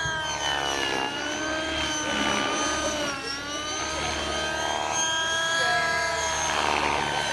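Engine of a small aircraft making fast low passes. Its pitch drops as it goes by, about a second in and again about three seconds in.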